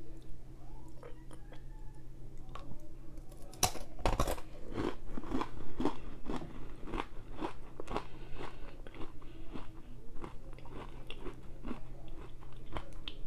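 A person biting a chocolate-dipped pretzel rod about four seconds in, with a sharp crack, then chewing it with a long run of close, irregular crunches.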